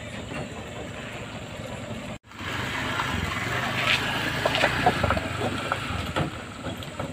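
Small motor scooter engine running as the scooter is ridden up a ramp of loose wooden planks, the boards knocking and clattering under the wheels. The sound drops out for an instant about two seconds in, then comes back louder.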